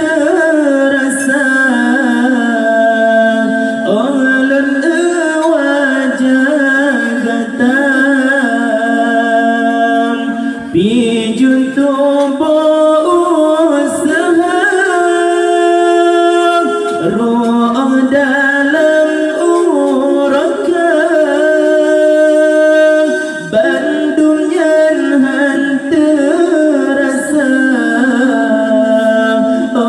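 Young man singing a nasyid solo and unaccompanied, in long ornamented phrases with held notes that slide and waver in pitch, broken twice by short pauses for breath.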